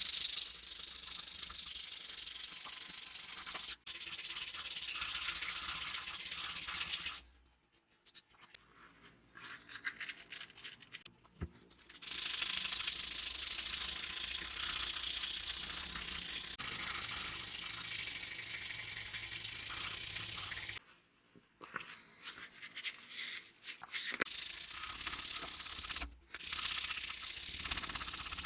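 Sanding on the hatchet: a steady abrasive hiss in long stretches. It stops twice, about seven seconds in and about twenty-one seconds in, for a few seconds each time, with only light scrapes in the pauses.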